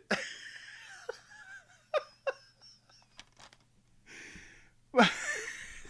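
A man laughing to himself in short wheezy, breathy laughs, with a louder breathy laugh near the end.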